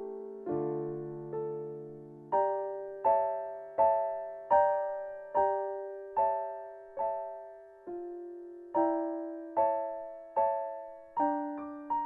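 Slow, gentle piano playing: single notes and chords struck about once every 0.8 seconds, each left to ring and fade before the next.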